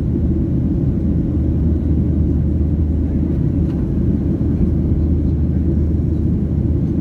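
Steady low rumble of a Ryanair Boeing 737-800's jet engines and airflow heard inside the passenger cabin in flight.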